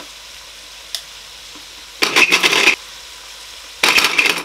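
Small electric countertop blender with a glass grinder jar pulsed in two short bursts, the first about two seconds in and lasting under a second, the second near the end, over a steady hiss, with a single click about a second in.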